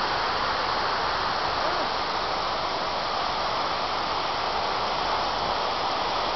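Steady rush of cooling water falling inside a thermal power plant's cooling tower, even and unbroken.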